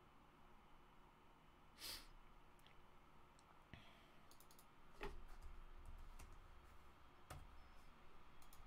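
Faint, scattered clicks of a computer mouse and keyboard over low room hum, with a short breathy rustle about two seconds in.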